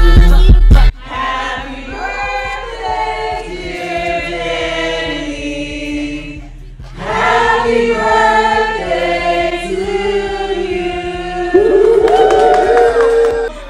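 Loud music with a heavy beat cuts off about a second in. A group of voices then sings together in harmony without instruments, pausing briefly in the middle and swelling on a rising held note near the end.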